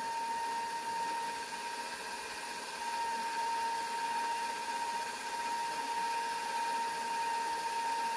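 Electric stand mixer running steadily at constant speed with a high, even motor whine, beating eggs into creamed pound-cake batter.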